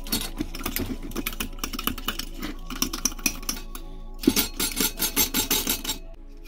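The small brass hand pump on a portable kerosene stove's fuel tank is worked in quick strokes, pressurising the tank. It gives a rapid run of sharp clicks, about three or four a second, that grows louder near the end and then stops.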